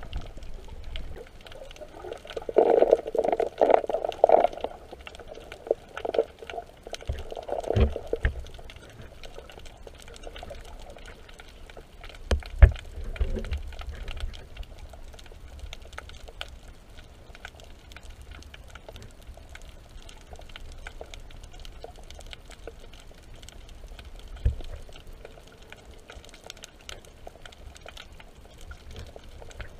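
Muffled water sloshing and gurgling, busiest in the first several seconds, with a few dull knocks later on.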